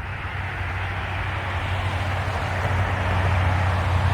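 A motor vehicle approaching: a low, steady engine drone with running noise, growing steadily louder.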